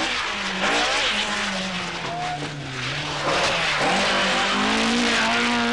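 Ford Escort Mk2 rally car at full power on a stage: the engine note drops back through the middle, then climbs again near the end as the car accelerates hard.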